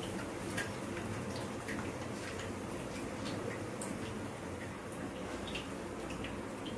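Hot frying oil in a kadai crackling, with scattered small pops over a steady hiss, as the fried soya chunks are lifted out of it.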